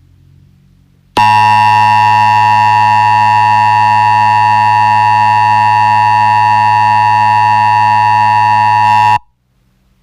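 Emergency Alert System attention signal: a loud, steady two-tone alarm held for about eight seconds, starting about a second in and cutting off sharply.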